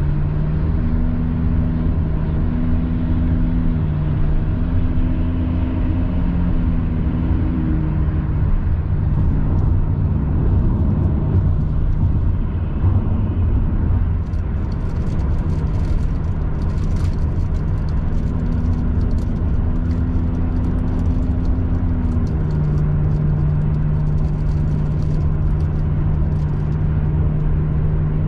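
Car cruising at highway speed, heard from inside the cabin: steady road and engine rumble with a low hum, and light crackling ticks through the second half.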